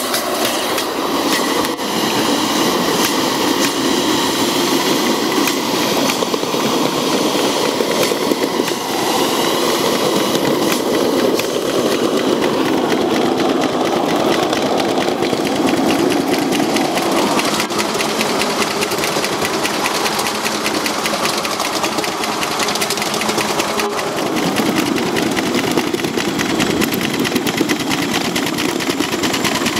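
Ride-on live steam model of ET&WNC locomotive #12 running under steam at speed: a rapid, even chuffing from its exhaust that carries on steadily throughout.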